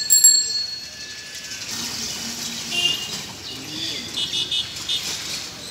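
A bicycle bell rings twice at the start, the ring dying away over a second or so; then small birds chirp briefly a few times in the middle and near the end.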